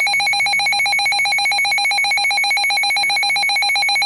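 Weather radio receiver's alert alarm going off for a flash flood warning: a loud electronic tone pulsing rapidly and evenly, without a break.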